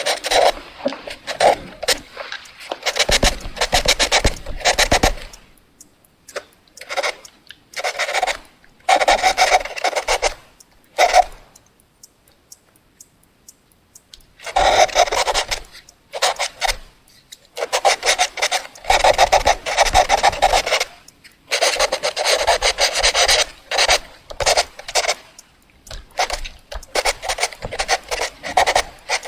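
Pencil scribbling fast on paper: quick back-and-forth scratching strokes in bursts of a second or a few seconds, with short pauses between them and one longer pause of about three seconds near the middle.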